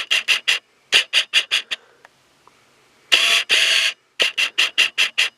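Runs of quick scratchy rubbing strokes, about five a second, with one longer stroke about three seconds in and a short pause before it.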